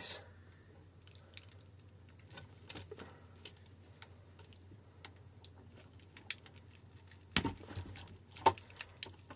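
A small screwdriver prying and scraping at a JST balance-lead plug on an e-bike battery pack, which is glued in place: faint scratchy clicks of plastic, with two sharper clicks near the end.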